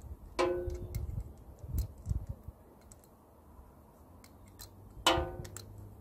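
Ratchet and socket working the nut of a new battery terminal clamp: scattered small metal clicks and taps, with two short ringing metal clinks, one just after the start and one about five seconds in.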